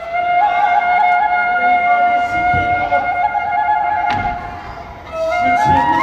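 Kagura bamboo flute playing long held notes with trilled ornaments, dipping near the end and then stepping up in pitch. A few low drum beats sound under it.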